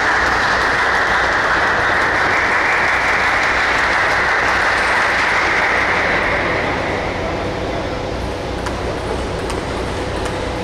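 Spectators applauding at the end of a table tennis match, dying away about seven seconds in; a few faint clicks follow.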